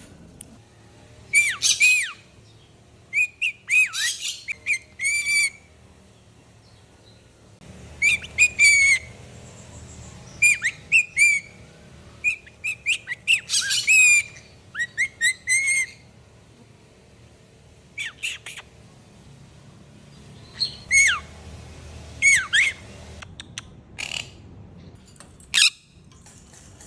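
Pet bird calling in clusters of short squawks and chirps, each call sweeping sharply up or down in pitch, with pauses of a second or more between the clusters.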